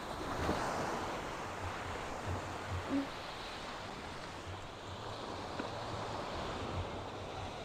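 Sea surf washing onto a sandy beach, a steady wash that swells slightly in the first second, with some wind on the microphone.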